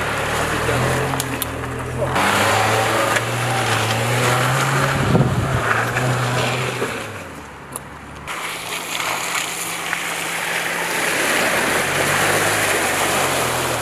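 Dacia Duster 4x4 driving off-road, its engine pulling steadily under load over tyres crunching on dirt and leaves. After a brief drop about eight seconds in, water and mud splash as it wades through a muddy puddle.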